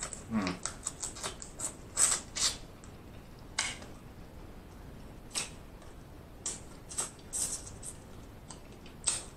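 Eating sounds of a man chewing sauced king crab meat: irregular wet clicks, smacks and crackles, several close together in the first few seconds, then more spaced out.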